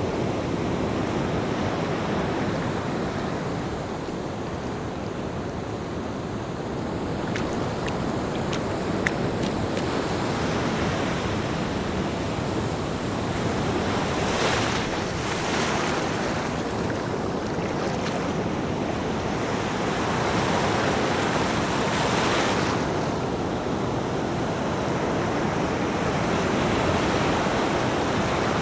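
Ocean surf: a steady rush of waves breaking and washing up the shore, swelling louder a few times as larger waves wash in.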